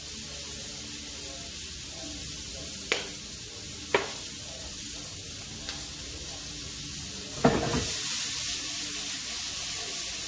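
Sliced onion sizzling steadily in olive oil in a frying pan, with a few sharp clicks. About three quarters of the way through there is a louder knock, and the sizzle grows louder as the pan is tossed.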